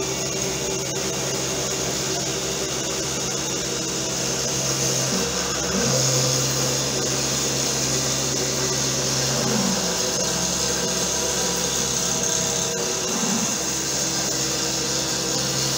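A homebuilt CNC router's 775 DC-motor spindle runs steadily while its small three-flute cutter mills a step into plywood. There are brief changes in pitch every few seconds.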